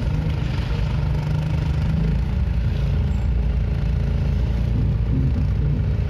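A car's engine and road noise heard from inside the cabin while it drives through town traffic: a steady low hum.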